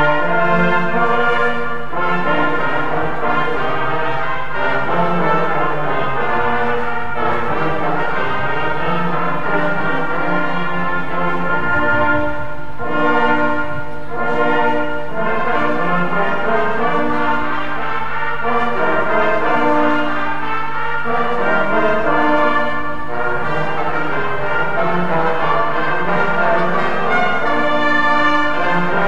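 Brass band of euphoniums, tubas, tenor horns and trombone playing together in held chords that change every second or two.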